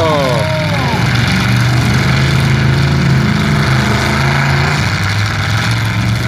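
Demolition derby cars' engines running loud and rough as the wrecked cars push against each other. There are a few high wavering cries in the first second.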